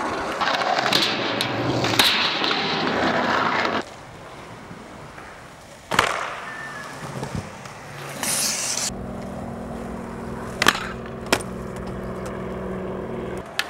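Skateboard wheels rolling loudly on concrete, then sharp clacks of a board popping and landing tricks. A steady low hum runs under the second half.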